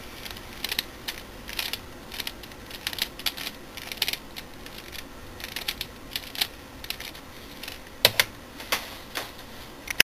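Square-1 puzzle being turned quickly by hand: repeated quick runs of plastic clicking as its layers twist and the middle slice flips. There is a louder clack about eight seconds in, and a sharp one at the end as the puzzle is set down.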